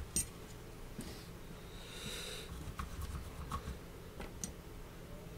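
Quiet repair-bench room tone: a low steady hum with a few small clicks of handling, one sharper click right at the start, and a soft brief hiss about two seconds in.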